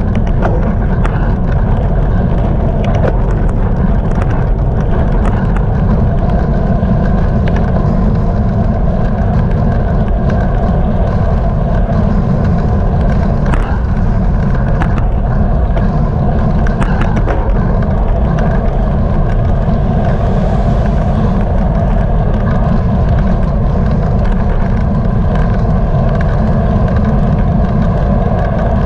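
Wind buffeting the microphone of a bicycle-mounted GoPro while riding, a loud steady rumble, with a steady hum above it and occasional small clicks.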